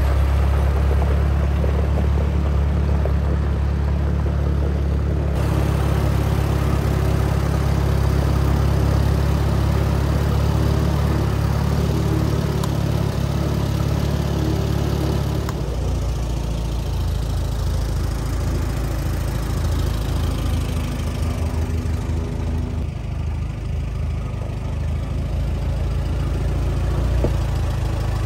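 1954 Allis-Chalmers WD45 tractor engine running at low speed as the tractor is driven. Its note changes about five seconds in and again about halfway through, taking on a pulsing beat in the second half.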